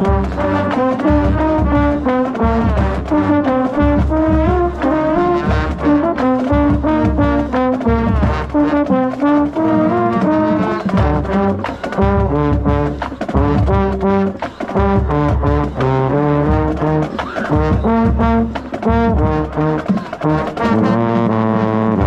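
Marching band brass section playing a loud trombone fanfare, with a baritone horn sounding right at the microphone.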